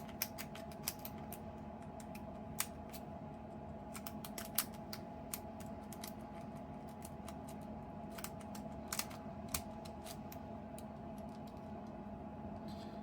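Lock-pick rake being worked in and out of an ABUS Titalium 64TI/40 padlock's keyway under tension, giving irregular sharp metallic clicks as it springs over the pins, over a steady low hum.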